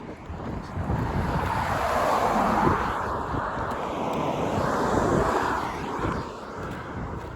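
A vehicle passing on the road: a rushing noise swells about a second in and dies away after about six seconds, with wind on the microphone.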